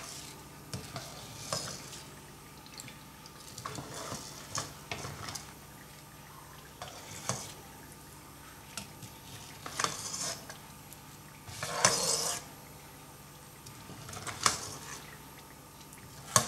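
A stainless mesh skimmer and wooden spatula scrape and clink against a non-stick wok while fishing black peppercorns out of hot spiced oil, over a faint sizzle of the frying oil. The scrapes come in short, irregular strokes, the longest and loudest about twelve seconds in.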